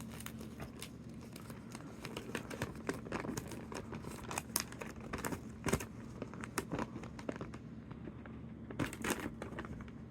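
Crinkling and rustling with many small sharp clicks, a louder cluster near the end: Lego minifigure parts and their packaging being handled.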